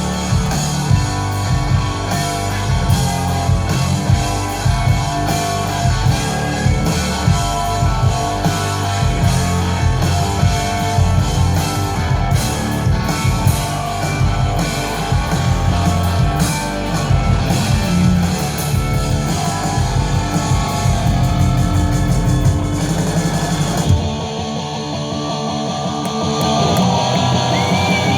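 Rock band playing live: electric guitars, bass and drum kit in an instrumental passage. About 24 seconds in, the drums and bass drop out, leaving ringing guitar that swells again shortly after.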